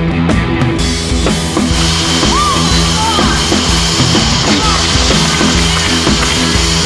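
Rock music with a driving drum-kit beat and steady bass notes.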